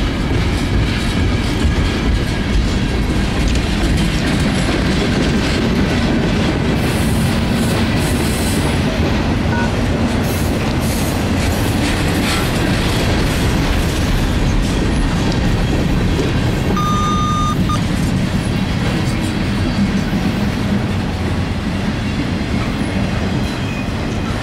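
Freight cars of a slow-moving CSX freight train rolling past close by: a steady rumble of steel wheels on rail. A brief high-pitched squeal comes about two-thirds of the way through.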